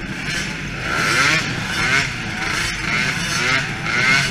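DRR 50 youth quad's small engine running and revving up and down several times as it rides slowly across a dirt floor.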